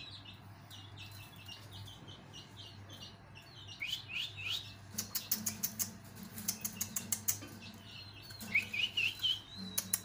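Small pet parrots in an aviary chirping: quick runs of short high chirps, some falling in pitch, with a burst of rapid clicky chatter around the middle.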